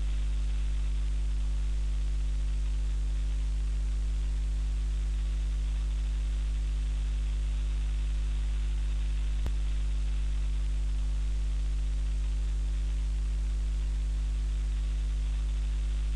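Steady electrical hum, strongest at the low end, with a constant static hiss over it and a single faint click about nine and a half seconds in; it cuts off suddenly at the end.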